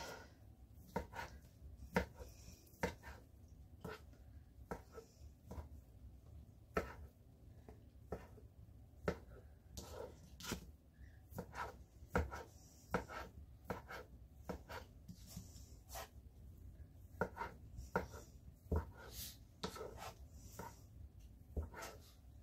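Kitchen knife cutting cooked chicken breast into small pieces on a plastic cutting mat, the blade knocking on the board irregularly, about one or two times a second.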